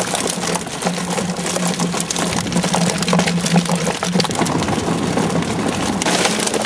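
Boat motor idling with a steady hum, over quick wet slapping and clicking as a bucketful of live mullet baitfish flip and splash.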